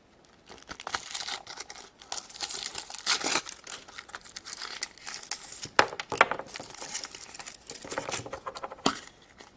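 Plastic wrapping crinkling and tearing as a surprise egg is unwrapped by hand, irregular and ongoing, with a few sharp clicks around six and nine seconds in.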